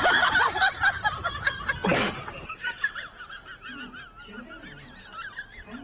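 High-pitched laughter, loud and dense for the first two seconds, then a quieter, wavering laugh. A short sharp noise cuts in about two seconds in.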